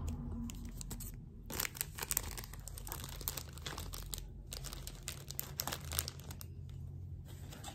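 Plastic cosmetic packaging and crinkle-paper basket filler crinkling and crackling as items are handled and pushed into a gift basket: a run of irregular small crackles, a few louder than the rest.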